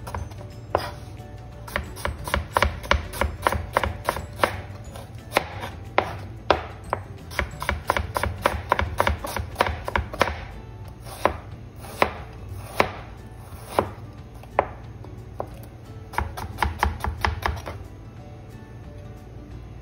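Knife slicing a red onion on a plastic cutting board: quick runs of sharp blade strikes on the board, several a second. They thin out for a while midway, come in one more fast run, and stop a couple of seconds before the end.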